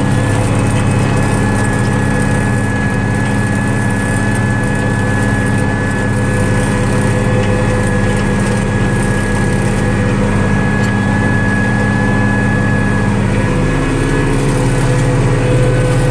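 International Harvester 1586 tractor's six-cylinder diesel engine running steadily under load while pulling a chisel plow, with a thin steady high whine over the engine note.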